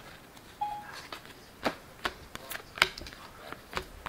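Glossy Topps Chrome baseball cards being flicked through by hand: a run of sharp clicks and snaps as each stiff card is slid off the stack, most of them in the second half.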